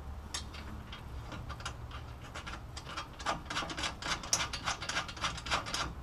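Light, irregular metallic clicks and rubbing as steel nuts are threaded by hand onto the bolts behind a brake dust shield and caliper bracket. The clicks come more often in the second half, over a low steady hum.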